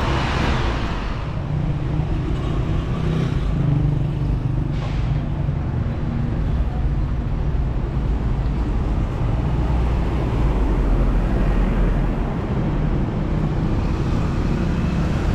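Road traffic: a city bus passes close by at the start, with a swell of noise that fades over about a second, over a steady low engine rumble and road noise.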